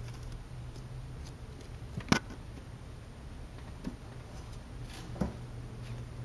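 Sphynx cat's paws tapping on a painted windowsill: three short sharp taps, the first and loudest about two seconds in, over a steady low hum.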